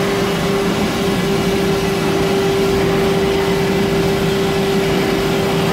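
Steady machinery hum with one constant mid-pitched tone held unchanged over a dense rumble.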